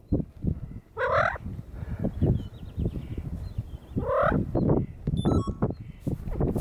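Rock ptarmigan calling twice, about three seconds apart: two short, rising calls over a run of soft low clucks or knocks.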